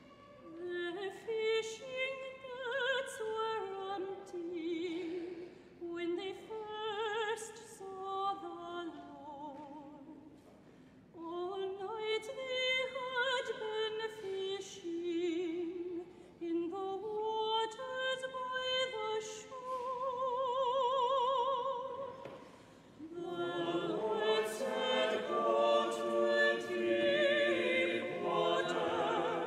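Church choir singing a slow hymn. A single high voice sings the melody with vibrato in long phrases, with short breaks between them, and near the end fuller singing sets in as more voices join.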